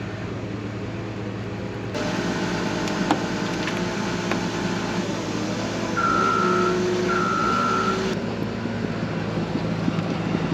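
Tow truck engine running steadily while it lifts a car, getting louder from about two seconds in until about eight seconds. The truck's warning beeper sounds twice, with long beeps, about six seconds in.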